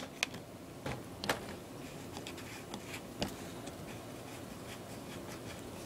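A few sharp clicks and light scraping as a cable connector is worked into its socket on a metal box. The clicks come mostly in the first second and a half, with one more about three seconds in.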